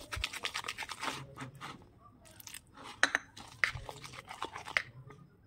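Flour-and-water batter being stirred in a bowl: a quick run of utensil clicks and scrapes against the bowl, thinning out after about a second.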